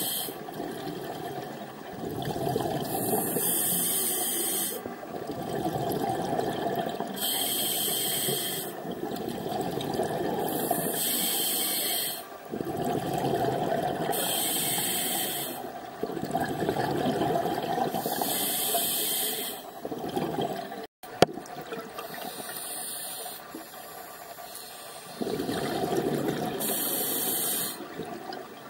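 A scuba diver breathing through a regulator underwater: a hiss on each inhale and a rush of exhaust bubbles on each exhale, about one breath every four seconds. A single sharp click about three-quarters of the way through.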